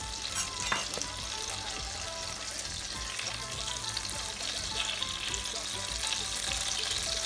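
Butter melting and sizzling in hot oil in a stainless steel pot, pushed around with a metal spoon. The sizzle is a steady hiss that slowly grows louder as the fat heats, with a couple of sharp clicks under a second in.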